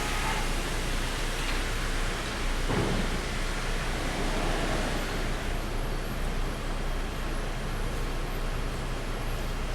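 Sawmill machinery running steadily as a constant noise with a low hum, and a single dull knock about three seconds in.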